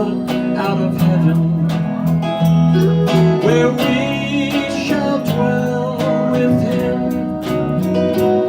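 Acoustic band music played live: steadily strummed guitars with a melody line over them.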